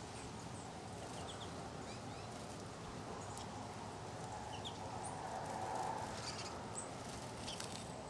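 Small finches giving short, soft chirps scattered through, over a steady faint hiss that swells briefly about five seconds in.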